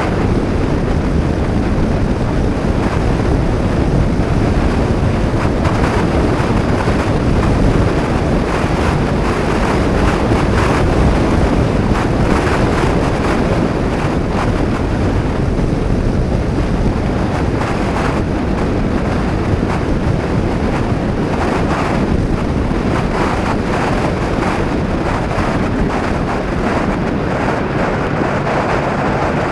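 Heavy wind buffeting the microphone at riding speed on a Honda PCX 125 scooter, steady throughout, with the scooter's single-cylinder engine and tyre noise running underneath.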